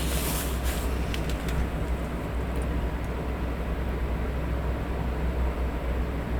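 Electric fan running steadily, a constant white-noise hum with a strong low rumble. There is a brief rustle of paper being handled in the first second or so.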